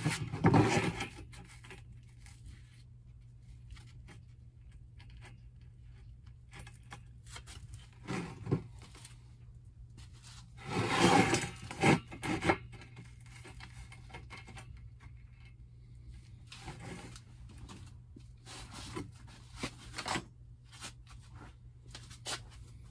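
A notched steel band bent into a ring scraping and rubbing across a plywood benchtop as it is handled and shifted. There are short bursts near the start and about eight seconds in, a longer one around eleven to twelve seconds in, and fainter scuffs later.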